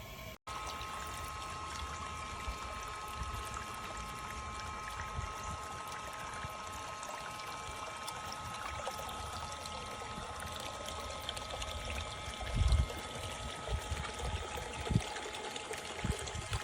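Water trickling and sloshing with a steady high motor whine, the cordless pool vacuum running in the water. A few low thumps come near the end.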